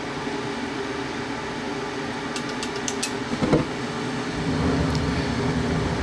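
Trane 90%-plus gas furnace running its inducer fan with a steady hum; after a few light clicks, the burners light off with a short surge about three and a half seconds in, followed by a low burner rumble.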